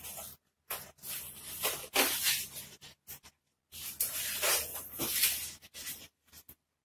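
Air hissing in several short bursts at the neck of a long latex modelling balloon that was pumped too full.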